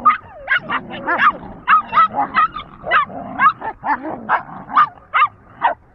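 Dogs play-fighting: a rapid run of short, high-pitched yips and yelps, about three a second, that stops near the end.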